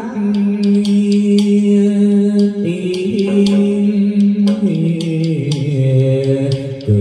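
Chầu văn ritual singing: a male voice holds long, drawn-out notes that step down in pitch towards the end, over frequent sharp percussive clicks.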